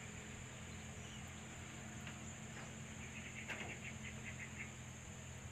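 An animal calls with a quick run of about ten short, high notes about three seconds in, over a steady high hiss.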